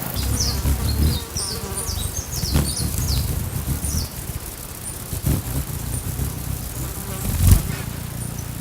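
Hummingbirds' wings humming as they fly close, with many short, high chips and squeaky calls. A louder burst of wing hum comes near the end.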